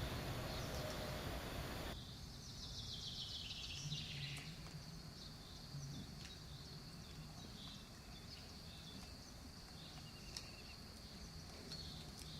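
Outdoor rural ambience: a steady high-pitched insect drone with scattered short bird chirps. The background changes abruptly about two seconds in, as at a cut between clips.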